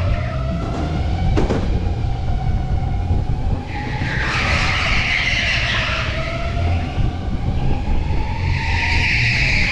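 Electric go-kart at racing speed: the motor's whine rises and falls with speed while the tyres squeal through corners, about four seconds in and again near the end. A brief knock comes about a second and a half in, over a constant low rumble.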